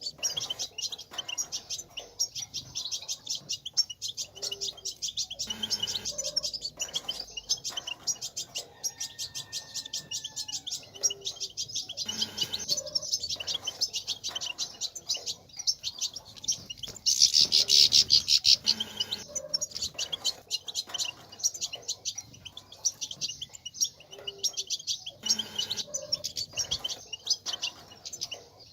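European goldfinches twittering in a fast, unbroken chatter of high chirps, louder for a couple of seconds past the middle. This rapid chattering is the 'batbata' that keepers play to rouse male goldfinches to sing.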